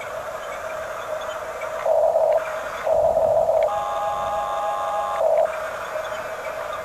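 Small electric motors of a radio-controlled toy construction model running with a steady whine, surging louder three times as the controls are worked.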